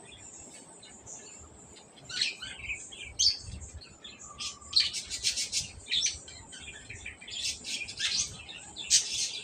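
Small birds chirping in quick runs of high notes, starting about two seconds in, over a faint steady high hiss.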